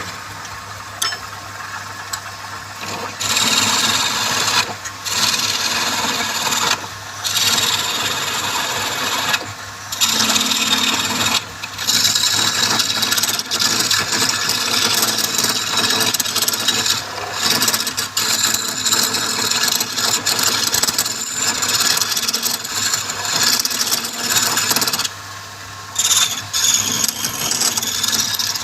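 Wood spinning on a woodturning lathe being worked with a tool, a steady rasping scrape in long passes broken by short pauses, over the low steady hum of the lathe's motor.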